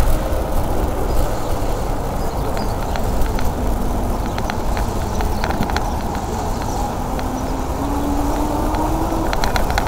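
Wind and road rumble on a bicycle-mounted camera riding through city traffic, with scattered light ticks and a faint tone that rises slowly near the end.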